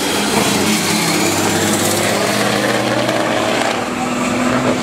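Diesel semi-truck engine running flat out as the truck accelerates in a drag race, hauling a loaded flatbed trailer; loud and steady.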